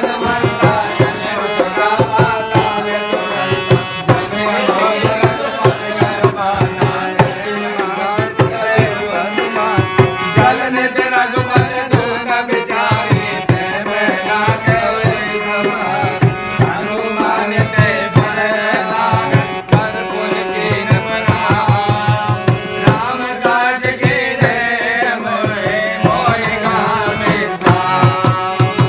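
Live Indian devotional-style music: a man singing to harmonium accompaniment while a dholak, a two-headed barrel drum played by hand, keeps a steady rhythm.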